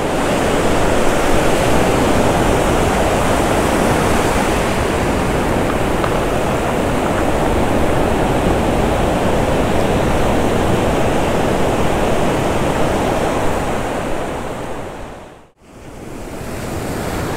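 Ocean surf on a sandy beach: a steady rush of breaking and washing waves. It dips briefly to silence near the end and then swells back.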